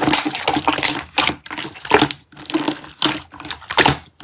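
Slime being squeezed and pressed by hand, giving wet squishing and sticky popping sounds in irregular bursts a few times a second.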